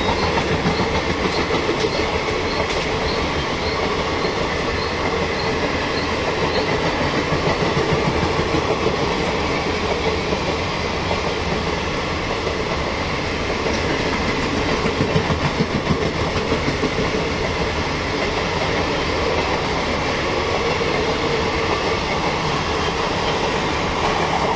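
A long Indian Railways express train of passenger coaches passing close by, its wheels and coaches making a steady, loud rattle without a break.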